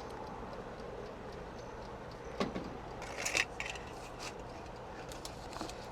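A few light knocks and a brief clatter of kitchen things being handled while a pizza is got ready to go into the oven, the loudest about two and a half and three and a half seconds in, over a steady low hum.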